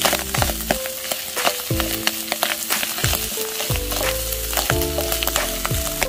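Food frying in a hot pan, sizzling steadily with many sharp crackles and spatters, over background music with a regular beat.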